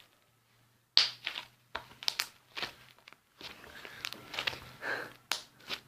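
Irregular soft clicks and crackles of something being handled close to the microphone, starting about a second in, over a faint low hum.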